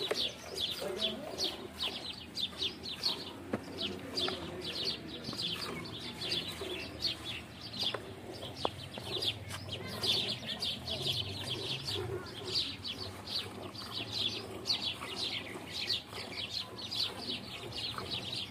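Hand milking: short hissing jets of milk squirting into a steel pail of frothy milk, about three squirts a second in a steady rhythm as the hands alternate on the teats.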